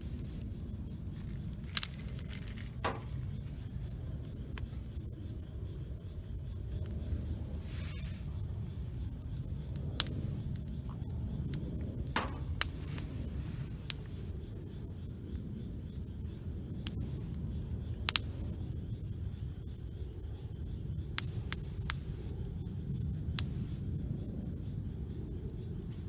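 Wood campfire burning: a steady low rush with sharp crackles and pops of the burning wood every few seconds.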